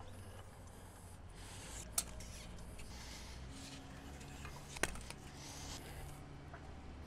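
Faint handling sounds of bikes being strapped down on a bike rack: rubbing and rustling, with two sharp clicks, one about two seconds in and one near five seconds.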